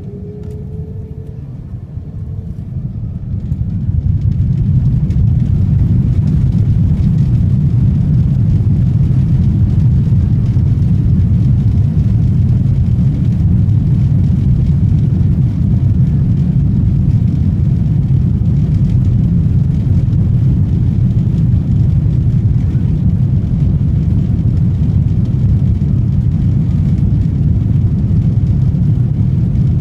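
Airbus A330 jet engines spooling up to takeoff thrust, heard from inside the aircraft. A faint rising whine fades out in the first couple of seconds. Then the sound grows over a couple of seconds into a steady, heavy rumble of engines and the takeoff roll.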